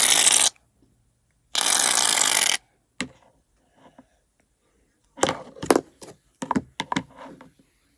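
Aerosol can of shaving foam spraying in two loud hisses: the first cuts off about half a second in, and the second starts about a second and a half in and lasts about a second. A few short knocks and rustles of handling follow near the end.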